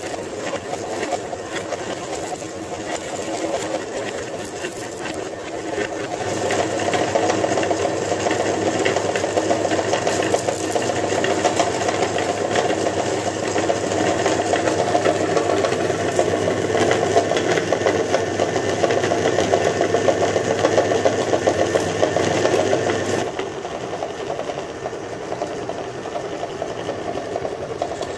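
Meat grinder motor running steadily while it grinds candy-coated chocolates fed into its hopper. The sound grows louder and deeper from about six seconds in and eases back about five seconds before the end.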